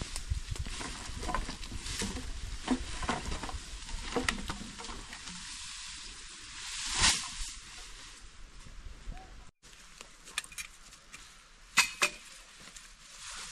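Crackling and sizzling over a cooking fire, with many small sharp pops. There is a louder swell about seven seconds in, a brief dropout after it, and two sharp knocks near the end.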